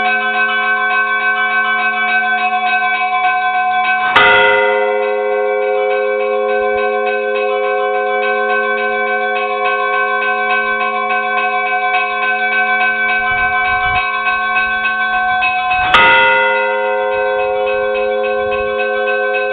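A peal of church bells: several smaller bells ring continuously in a quick, busy pattern, while a heavier bell is struck twice, about 4 seconds in and again near 16 seconds, each stroke ringing out and slowly dying away.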